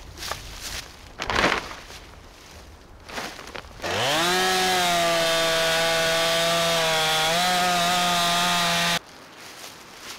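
Two-stroke chainsaw revving up about four seconds in and running at high, steady speed while bucking firewood rounds. Its pitch steps up slightly a little before the end, and it cuts off abruptly. Before the saw starts there are a few brief rustles and a knock.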